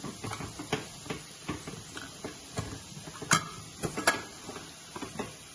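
Lid of a Prestige pressure cooker being fitted and locked shut: a run of light metal clicks and knocks as the lid and handles are worked, with two louder clacks about three and four seconds in.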